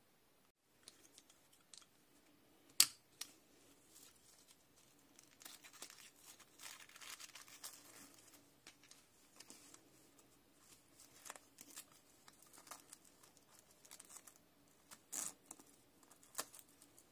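Handling of a Crivit mini bike pump's plastic frame-mount bracket and strap: a sharp click about three seconds in, a stretch of scratchy rustling, then a few more clicks and scrapes near the end.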